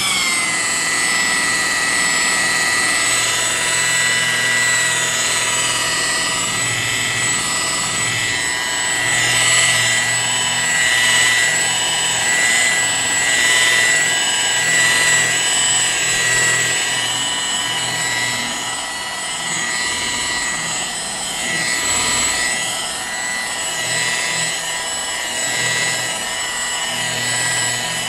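Electric power tool motor running at a steady high speed, giving an even, high-pitched whine whose level wavers slightly.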